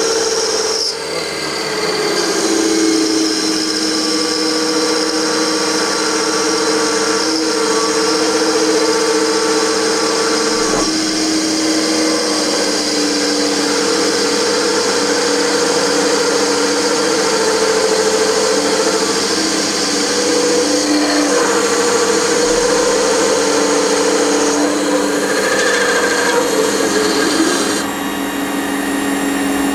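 Small metal lathe running with its chuck spinning a metal shaft while a turning tool cuts it: a steady motor whine over the hiss of the cut, the pitch shifting a few times.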